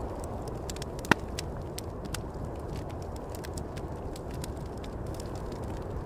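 Campfire crackling with scattered small pops and one sharp, loud pop about a second in, over a steady low rush of wind.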